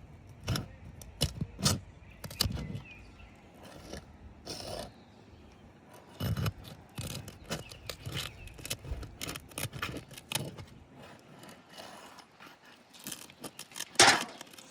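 A roof snake prying and sliding under asphalt shingles, breaking their sealant strips loose: irregular scrapes, rubs and clicks, with one sharper, louder crack near the end.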